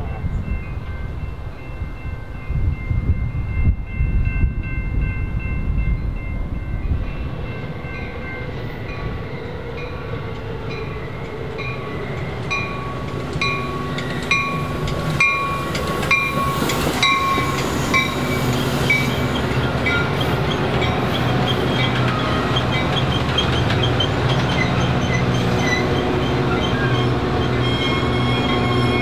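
Metra diesel commuter train approaching and passing a station. A horn sounds and bells ring about once every 0.6 s for several seconds, then a steady diesel hum with wheel clicks comes in as the bilevel passenger cars roll by.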